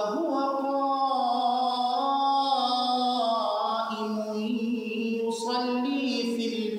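A man's voice reciting the Quran in Arabic in a melodic, chant-like style, drawing out long held notes that slowly rise and fall in pitch.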